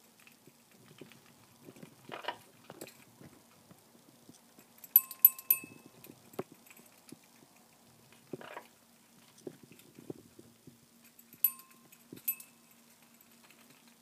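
A small metal toy bell in a parrot's cage ringing as the parrot knocks it with its beak: a quick run of three or four clinks about five seconds in and two more near the end, each with a short ringing tone. Softer short scuffing noises come in between.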